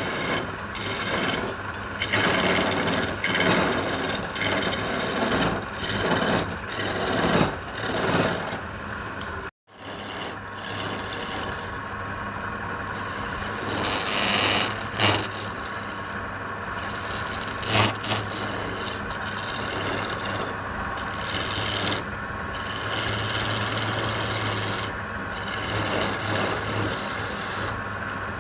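Wood being worked by hand with an abrasive tool: repeated rubbing, rasping strokes on wood. After a cut about ten seconds in, the rubbing goes on more steadily over a low hum, with a few sharp clicks.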